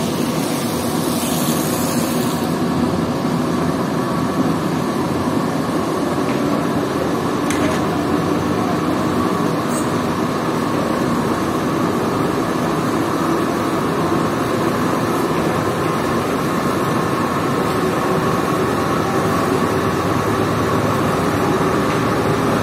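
Carpet-washing equipment running steadily, a continuous machine noise with water spraying across a soaked rug.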